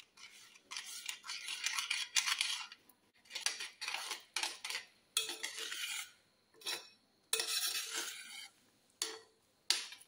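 A metal spoon scraping and clinking against a metal pot while stirring thick ragi and vegetable soup, in a run of separate short strokes with brief pauses between them.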